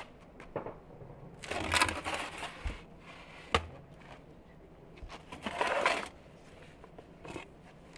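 Metal baking tray of pizza rolls scraping across the floor of a brick oven as it is slid out. There are two scrapes about four seconds apart, with a single sharp clank between them.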